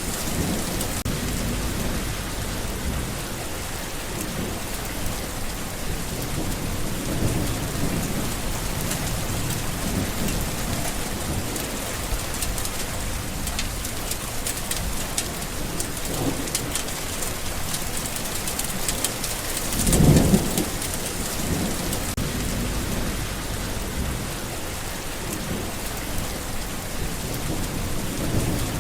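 Steady heavy rain with low thunder rumbling now and then, and one louder roll of thunder about two-thirds of the way through.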